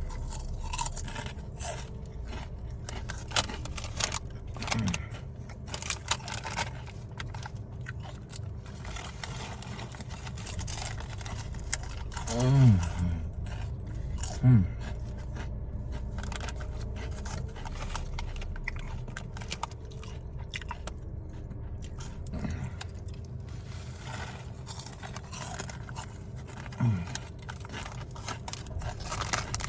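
Someone crunching and chewing ridged potato chips (Ruffles Flaming Hot BBQ), with many irregular crisp crackles. A few short vocal sounds break in along the way.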